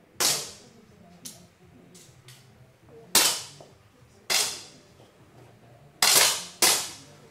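Air pistol shots in a range hall: five sharp cracks at uneven intervals, the last two about half a second apart, each with a short echo, plus one fainter crack from a shooter farther away. Several shooters fire a single scored shot each, at their own pace.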